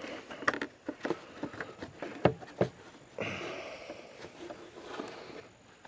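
Small scattered clicks and knocks of hands twisting a plastic turn-signal bulb socket loose in its lamp housing, with a short rushing noise about three seconds in.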